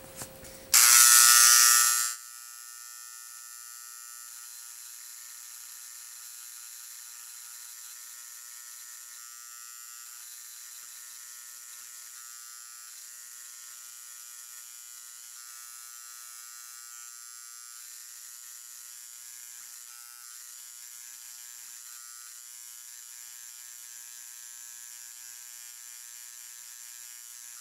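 Dremel electric engraver buzzing as its carbide tip is worked along the end of a titanium knife lockbar under 40 V DC, laying down a tungsten carbide layer. The buzz is loud for about a second and a half near the start, then steady and much quieter.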